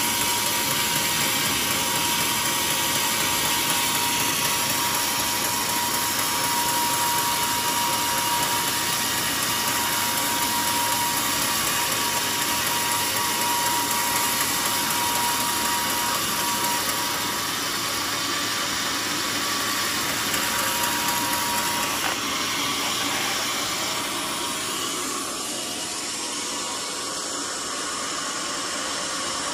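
Band sawmill cutting through a mahogany cant: the blade and its drive run with a steady, loud, even noise and a thin steady whine that fades out about two-thirds of the way through, after which the noise continues a little quieter.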